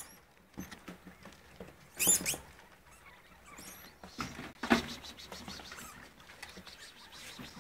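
Degus moving about in a wire cage: light scrabbling, rustling and small clicks, with louder scuffles about two seconds in and again near five seconds.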